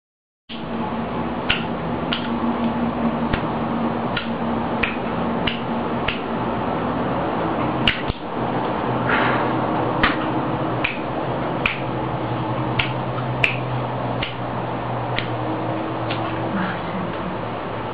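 Lighter being handled: sharp clicks, roughly one every second, over a steady hum.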